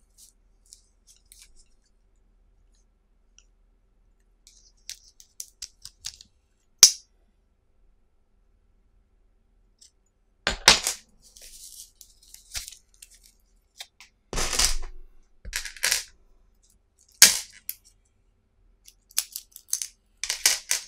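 Steel drill bits clicking sharply as they snap onto and are pulled off a magnetic wristband bit holder: about half a dozen separate clicks a few seconds apart, with faint rustling of the plastic band between them.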